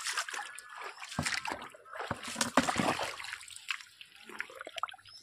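Irregular splashing and sloshing of shallow muddy water, heaviest from about one to three seconds in.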